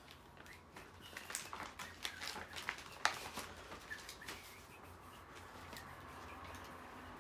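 Sheets of paper rustling and crackling as they are handled, in a run of short irregular crackles over the first four seconds or so, then quieter.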